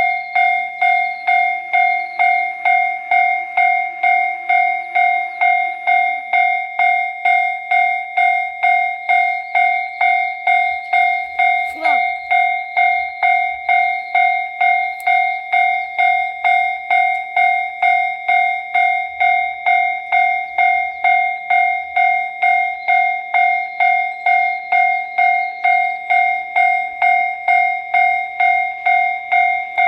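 Japanese railway level-crossing alarm bell ringing its steady 'kan-kan', about two strikes a second, warning that a train is approaching and the crossing is closed.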